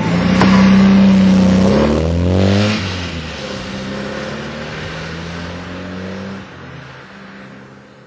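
A machine motor running with a loud, steady hum. Its pitch slides upward about two seconds in, then it carries on at a lower level and fades near the end.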